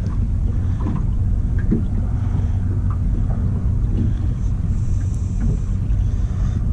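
Steady low rumble of wind and water around a small aluminium boat drifting on open water.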